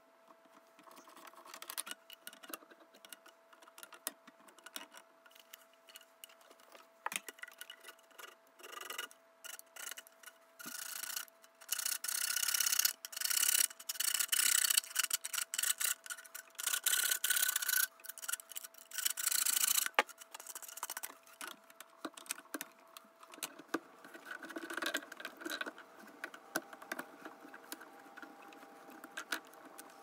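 White plastic drain pipes and slip-joint fittings being handled under a sink: rubbing, scraping and clicking as the pieces are worked apart and pushed together, with a run of louder rasping scrapes from about eleven to twenty seconds in. A faint steady hum runs underneath.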